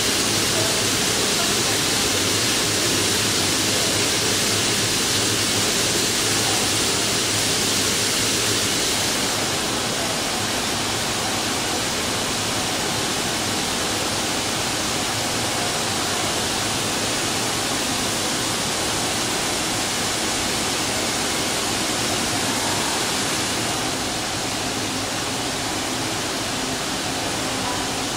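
Steady, even rushing noise from a working distillery's equipment, dropping slightly about ten seconds in and again near the end.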